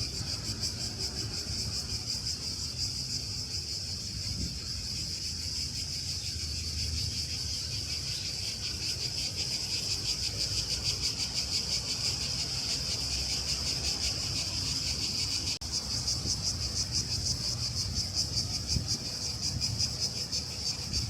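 Chorus of cicadas buzzing, a steady high, rapidly pulsing drone, over a low rumble.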